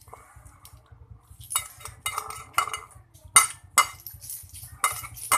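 Cutlery clinking against dishes: about seven sharp clinks starting about a second and a half in, from utensils scraping and tapping a bowl while eating noodles.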